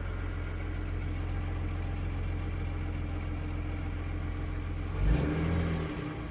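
BMW N53B30 3.0-litre straight-six idling steadily shortly after a cold start. About five seconds in the engine note briefly surges louder and shifts in pitch, then settles back to idle.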